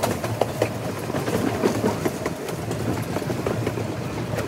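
Train running along the track on a heritage railway: a steady low rumble of the wheels with many irregular clicks and knocks from the running gear and rails.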